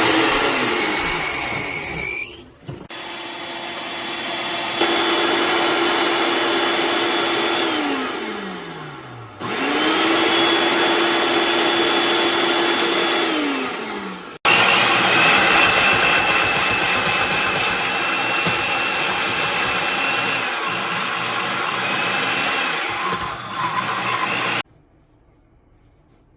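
Hamilton Beach Wave Crusher blender's 700-watt motor running in several runs. Twice its hum winds down in a falling pitch as it is switched off, then starts up again; about 24 seconds in it cuts off suddenly.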